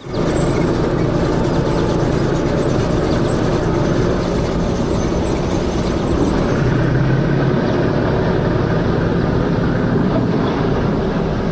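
Heavy machinery running: loud, steady engine and mechanical noise that starts abruptly and holds without a break.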